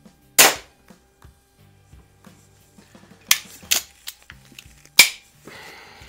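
Baikal IZH-46M single-stroke pneumatic air pistol firing one sharp shot about half a second in. A few seconds later come several sharp clicks and then a single hard knock.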